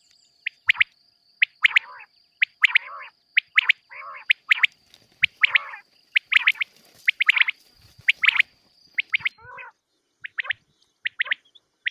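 Quail calling over and over in short, sharp notes at an irregular quick pace, some with a lower gurgling tail, as in a quail-call recording used to lure birds for hunting. A thin steady high-pitched tone runs beneath until about nine seconds in.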